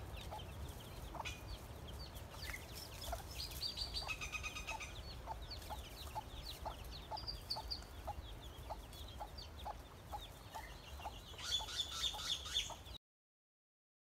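Silkie hen clucking in a steady series of short calls while her chicks peep, the peeping busiest near the end. The sound cuts off suddenly about a second before the end.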